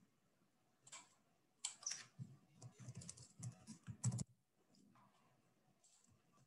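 Computer keyboard typing: one short click about a second in, then a quick, irregular run of keystrokes for about two and a half seconds as a short word is typed.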